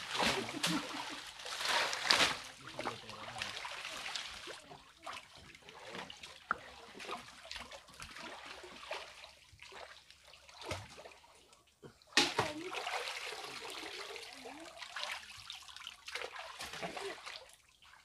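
Water splashing and sloshing as several people wade waist-deep and grope by hand in a shallow river, loudest in the first couple of seconds and again in a sudden splash about twelve seconds in.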